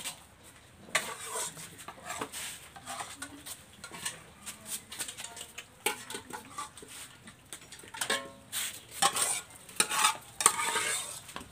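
A metal spoon scraping and clinking against a metal bowl as dog food is dished out, and food plates clattering on a tiled floor as puppies eat from them. A string of short clatters, busiest and loudest in the last few seconds.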